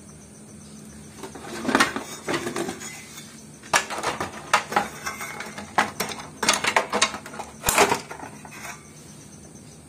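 Irregular metallic clinks and knocks from a circuit board with a finned aluminium heatsink being handled inside an amplifier's metal chassis. They start about one and a half seconds in, come in small clusters, and stop shortly before the end.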